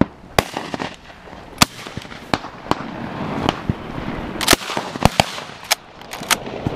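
Duck hunters' shotguns firing all around a marsh: about a dozen shots in an irregular volley, some close and loud, others fainter and farther off, the loudest cluster in the second half.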